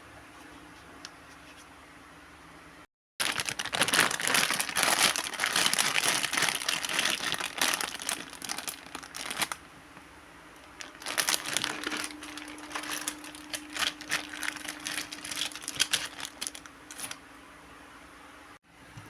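Toy packaging being handled, crinkled and torn open: a long stretch of loud crinkly rustling, a short pause, then more crinkling in irregular bursts.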